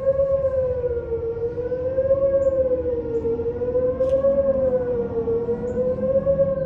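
Outdoor tornado warning siren sounding a wavering wail during a scheduled test: one strong tone rising and falling in pitch about every two seconds. A fainter lower tone sounds beneath it, and the pitch begins to sag near the end.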